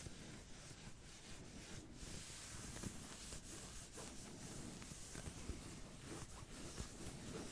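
Soft, continuous scratching and rubbing strokes of a roleplayed ASMR back scratch.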